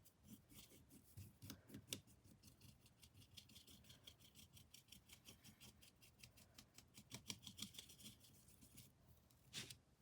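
Faint, quick, scratchy strokes of a paintbrush working paint onto canvas, several strokes a second, with one louder stroke near the end.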